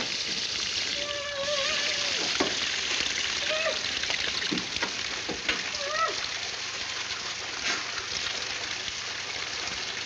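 Water spraying under pressure from a leaking wall pipe fitting above a bathtub, a steady hiss that runs without a break.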